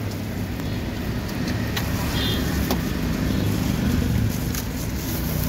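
Steady low rumble of street background noise, with a few faint clicks about two and three seconds in.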